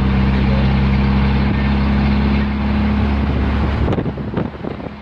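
Steady engine drone and road and wind noise of an Isuzu truck heard from inside the cab while driving. About four seconds in, the noise drops and breaks up briefly.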